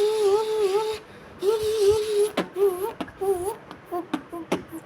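A person imitating a Toyota Supra MK4's engine with his mouth: a held, wavering vocal rev that breaks off about a second in, a second rev, then shorter rev bursts broken by sharp clicks and pops.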